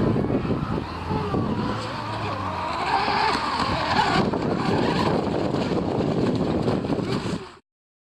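Radio-controlled model boat running on the water, its motor a wavering whine that rises and falls in pitch, over heavy wind noise on the microphone. The sound cuts off abruptly about seven and a half seconds in.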